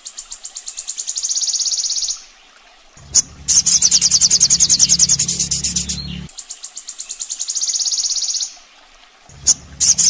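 Sogon sunbird song: very fast, high-pitched trills of rapidly repeated notes, in phrases about two seconds long split by short pauses, the same sequence repeating.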